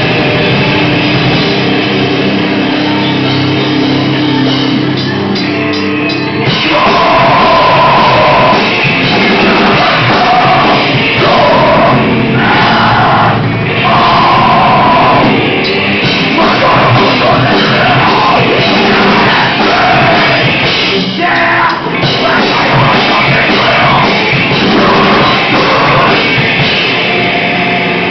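A rock band playing heavy, loud music with drums; the first six seconds or so are instrumental, then the band gets louder and a vocalist comes in.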